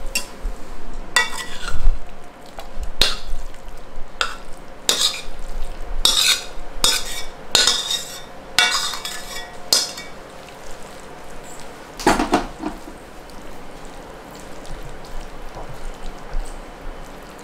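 Metal spatula scraping and knocking against a metal kadai as a thick cooked chutney mixture is scraped out onto a plastic tray. Short, sharp scrapes and knocks come several a second for the first ten seconds, with one more about twelve seconds in, then only soft spreading sounds.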